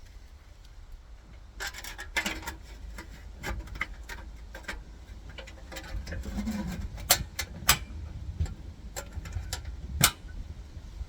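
Irregular sharp clicks and knocks of hard parts being handled, over a low steady rumble.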